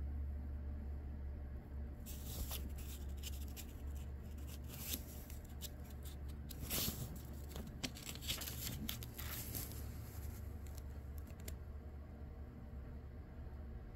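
Dry paper pages of an old book rustling and crackling as a page is turned by hand, starting about two seconds in and stopping near the end, loudest in the middle. A steady low hum runs underneath.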